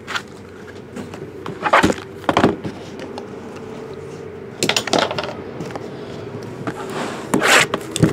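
Cardboard trading-card box being handled and opened on a table: several sharp knocks and scrapes of cardboard, about two seconds, five seconds and seven and a half seconds in, over a steady low hum.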